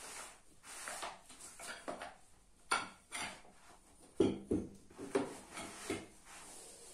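Assembling a folding camp bed: the metal frame poles and plastic clips knock and click against each other while the fabric bed rubs and rustles along them, in irregular bursts with a sharper knock about three seconds in and the loudest about four seconds in.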